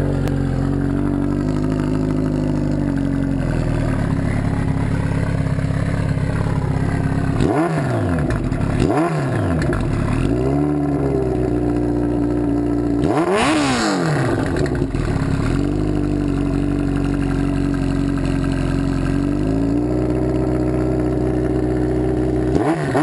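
Kawasaki Ninja ZX-14's inline-four engine idling through a Coffin aftermarket muffler, blipped with quick throttle revs about five times, the biggest rev a little past halfway through.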